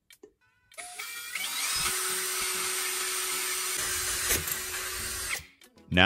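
Cordless drill boring a hole through the thin aluminium bottom of an empty soda can. The motor winds up with a rising whine about a second in, runs steadily for about four seconds, and stops near the end.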